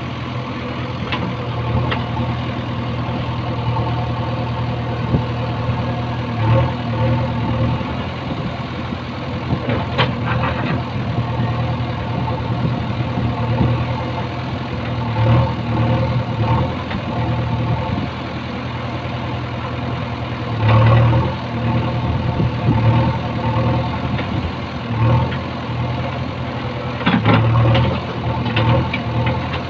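JCB 3DX backhoe loader's diesel engine running steadily, swelling under load every few seconds as the hydraulics work the backhoe arm and bucket through the soil. A few short knocks of the bucket on earth and stones, about ten seconds in and near the end.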